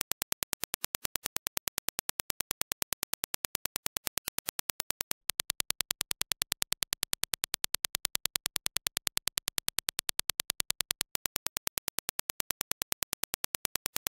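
A test signal of Dirac impulse clicks, evenly spaced at roughly ten a second. After about five seconds the reference impulse train gives way to the same clicks as reproduced by Audeze LCD-X planar magnetic headphones and recorded on a measurement dummy head, slightly louder. About eleven seconds in, the reference clicks return.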